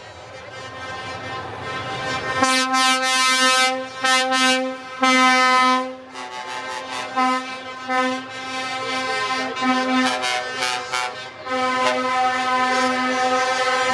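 Truck air horn sounding: long blasts, then a run of short toots, then a long held blast from near the end. Before the horn starts, a vehicle's low rumble grows louder.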